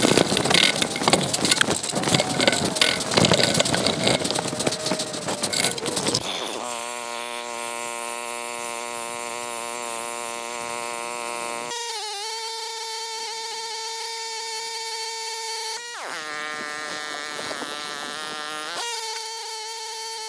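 Single-cylinder Weima WM188F petrol engine of a walk-behind tractor running under load as its soil tiller works the ground: loud and rough for about the first six seconds, then a steadier, quieter drone as the machine moves off down the field.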